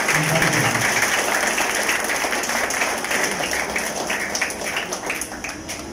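Audience applauding, a dense run of clapping that slowly fades toward the end.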